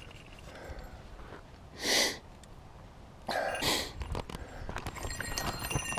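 A man close to the microphone coughing twice, a short cough about two seconds in and a longer one about three and a half seconds in.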